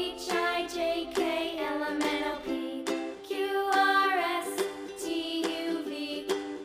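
Background music: a song with a singing voice over an instrumental accompaniment.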